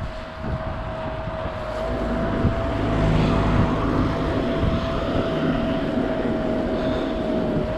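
Mountain bike rolling down a trail: rumbling tyre and frame noise with wind on the microphone, getting louder about two seconds in, and a steady thin whine throughout.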